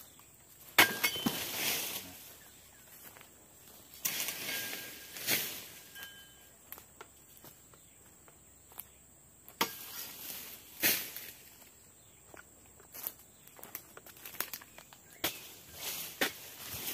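Sharp knocks of a long-poled oil palm harvesting chisel (dodos) striking the palm, the loudest about a second in, with rustling after the first strikes. Footsteps crunch through dry frond litter.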